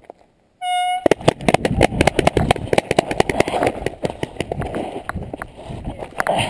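A short horn-like tone, the signal that starts the paintball round, then the fast, irregular crunch of running footsteps on gravel and rocks with gear rattling and wind on the microphone.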